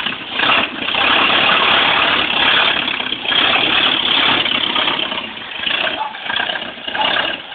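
Ford Model AA truck's four-cylinder engine running as the truck moves off under its own power.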